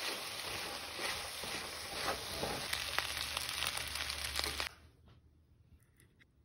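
Shrimp fried rice sizzling in a hot pan while a wooden spatula stirs and scrapes it in repeated strokes. After about four and a half seconds the sizzling cuts off suddenly, leaving only a few faint clicks.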